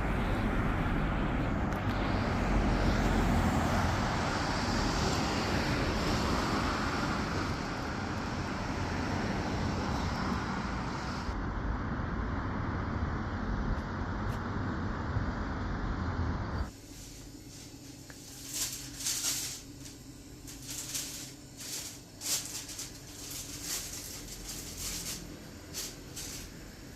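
Steady road traffic noise for about two-thirds of the time, then a sudden cut to a much quieter room with scattered light clicks and taps.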